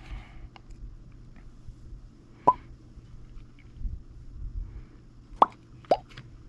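Small metal bolts and parts clinking as they are handled: three short, sharp clicks with a brief ring, one about two and a half seconds in and two close together near the end, over a faint steady hum.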